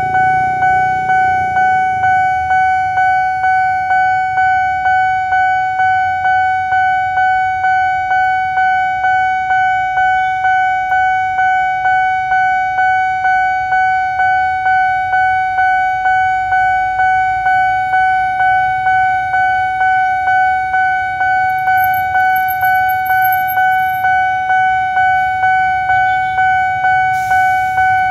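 Railway level crossing warning bell ringing continuously: one high electronic ding repeated about twice a second, each note fading before the next. Road traffic runs underneath.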